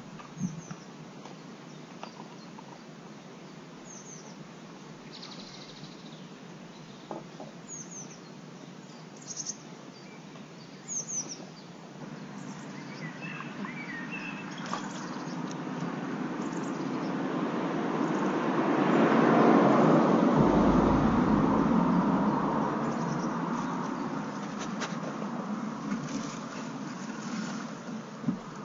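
Small birds chirping now and then. From about twelve seconds in, the rushing noise of a vehicle passing swells slowly to a peak, with a brief low rumble, and fades again over roughly fifteen seconds.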